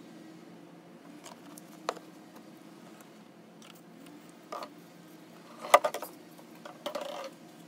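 Scattered plastic clicks and knocks as the funnel is lifted out of the oil filler neck and the oil filler cap is put back on, with the loudest cluster of clicks just before six seconds in, as the cap is seated.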